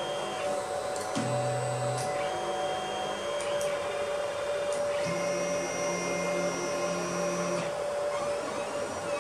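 Stepper motors of an Alfawise U10 3D printer whining through a series of moves, each one to two and a half seconds long at its own steady pitch, as the print head and bed travel into position at the start of a print. Underneath runs a steady hum.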